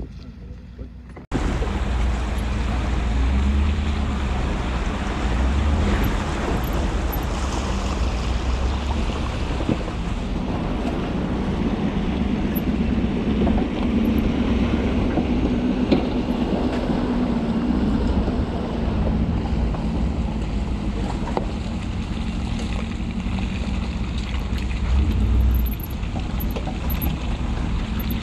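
Ford F-250 Super Duty pickup driving through mud and standing water, its engine running under a steady rumble of wind on the microphone, with water sloshing around the tyres. The sound jumps in abruptly about a second in.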